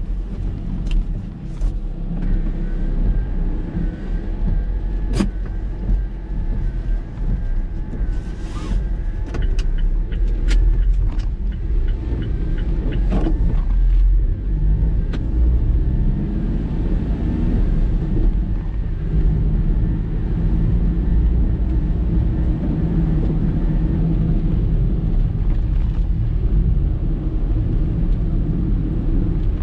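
Gusting typhoon wind buffeting the microphone with a heavy low rumble, over the steady noise of storm surf, with scattered knocks and clicks.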